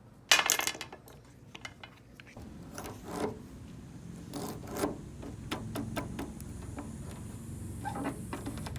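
A metal key with a rubber hose collar being handled and worked in an ignition lock: a sharp rustle near the start, then scattered light clicks and rubbing.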